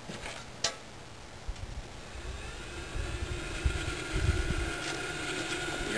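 A downdraft gasifier's starting fan spinning up about two seconds in, its whine rising and then holding steady, over a low rumble. A single click comes just before it starts.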